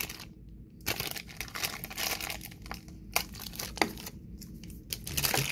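Clear plastic bag crinkling and crackling as it is handled and pulled at to get a sealed bag open, in fits and starts with a couple of short pauses.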